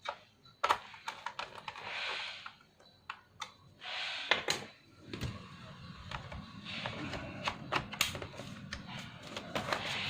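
Small screws being driven back into a laptop's plastic bottom cover with a screwdriver: irregular clicks, taps and light rattles of metal on plastic.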